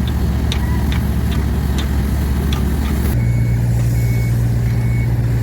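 Heavy diesel construction vehicle running, with several sharp clanks in the first few seconds. About three seconds in, the engine note rises and its reversing alarm starts beeping, about once every 0.7 seconds.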